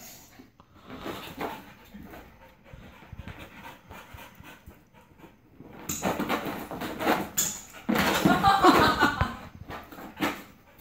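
Dogs panting and whimpering while playing, their paws scrambling and thudding on carpet as they leap at a swinging toy. About six seconds in the scuffling gets louder, and a pitched, wavering whine comes in around eight seconds.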